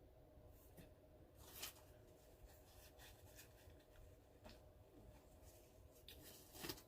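Near silence: room tone with a few faint short crackles, the clearest about a second and a half in and just before the end.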